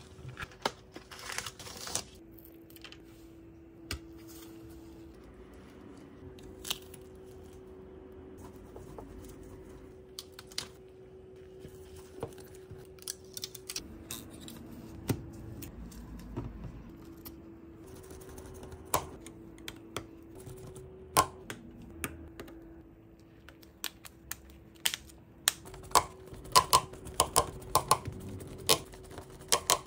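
Light scattered clicks and taps of small smartphone parts and hand tools being handled, with a quick run of louder clicks near the end as screws go in with a precision screwdriver. A faint steady hum runs underneath.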